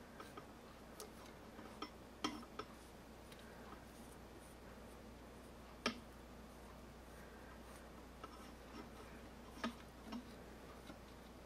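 Faint, scattered ticks and light clicks of a thin steel inner cable being fed into and handled against cable housing, with the sharpest tick about six seconds in.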